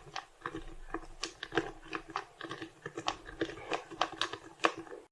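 Plastic Rubik's cube being turned by hand: a run of irregular sharp clicks and clacks, about three a second, as the layers are twisted.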